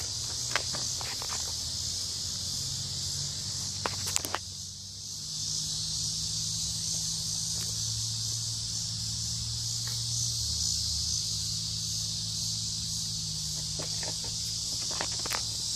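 Steady high-pitched chorus of insects, such as crickets or cicadas, outdoors. A few short clicks and knocks sound near the start, about four seconds in, and near the end.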